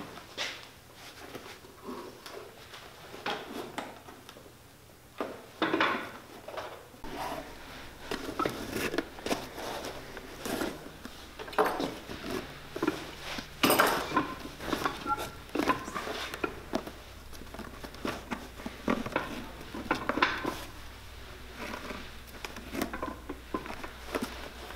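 Boot welt being hand-stitched: an awl punching through the leather and thread pulled through and drawn tight, an irregular run of short clicks, scrapes and rasps. A low steady hum comes in about seven seconds in.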